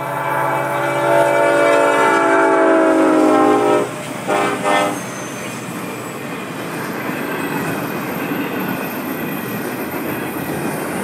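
Diesel freight locomotive's air horn sounding a long chord that ends about four seconds in, then two short blasts. After that, the steady rumble and wheel clatter of a double-stack container train passing close by.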